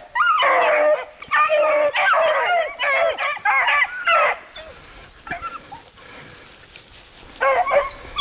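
A pack of beagles baying and yelping in full cry as they run a rabbit. Many overlapping calls, dying down after about four and a half seconds and picking up again near the end.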